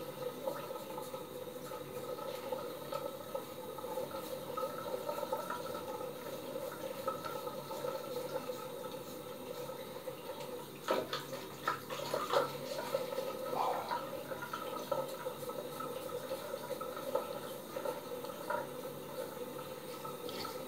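Three-blade razor scraping through long stubble on a gel-lathered scalp in repeated short strokes, with a few louder scrapes or knocks about halfway through, over a steady background hum.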